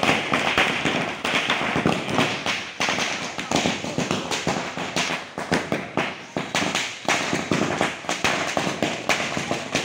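Firecrackers bursting on the ground in a rapid, irregular run of sharp bangs and crackles.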